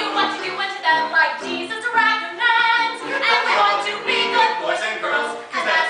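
A woman singing a musical-theatre song, holding some of her notes.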